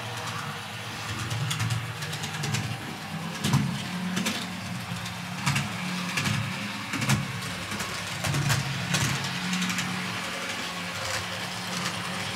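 TT-scale model of a class 842 diesel railcar running on a layout: its small electric motor and gearing hum steadily, with scattered clicks from the wheels on the track.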